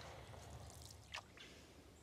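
Faint drips and small splashes of water from a wooden otter tail canoe paddle working the water, with one sharper drip about a second in.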